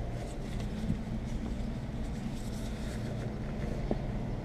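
A steady low mechanical hum, with faint rubbing and a couple of light clicks from hand work on the rubber gasket of a windshield being fitted into its frame.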